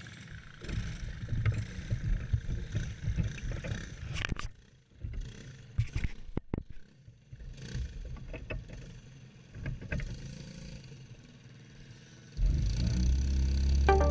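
Go-kart engine running unevenly at low revs, an irregular low rumble with swells and a few sharp knocks. Music comes in near the end.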